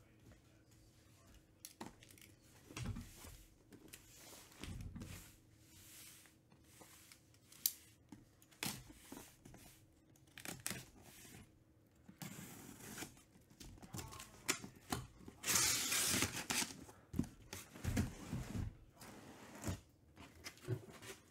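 A taped cardboard case being cut open with a folding pocket knife and pulled apart: a string of clicks, scrapes and cardboard rustles, with a longer tearing stretch a little past the middle as the tape and flaps give way.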